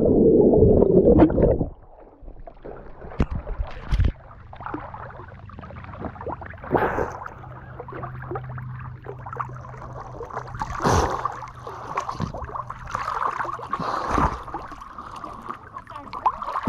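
Muffled underwater rush of churning water and bubbles, cutting off about two seconds in as the camera comes up to the surface; then water lapping and sloshing close to the camera, with several sharper splashes from swimming strokes.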